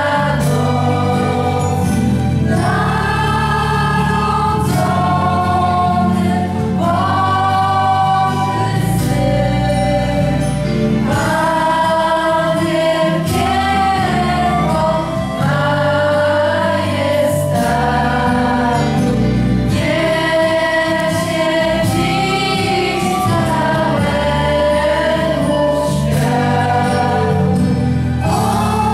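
Children's voices singing a Polish Christmas carol (kolęda) together over steady held accompaniment chords.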